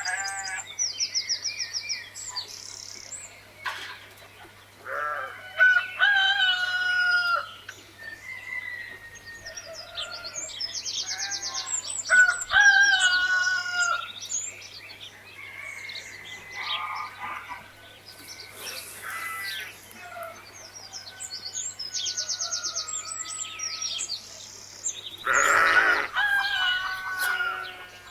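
Farmyard ambience: roosters crowing about three times, hens clucking and small birds chirping, over a faint steady low hum.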